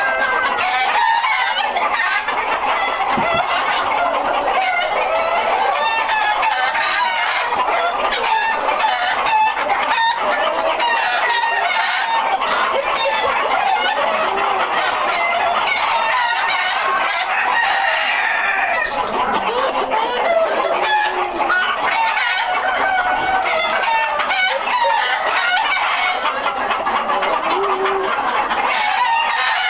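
A large flock of White Leghorn chickens clucking and calling over one another without a break, with roosters crowing among them. One louder call stands out about two-thirds of the way through.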